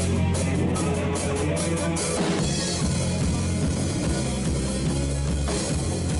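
Rock music with drum kit, electric guitar and bass, quick hi-hat ticks giving way to a cymbal crash about two seconds in.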